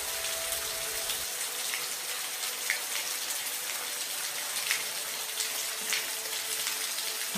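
Steady rain falling, an even hiss with individual drops ticking now and then.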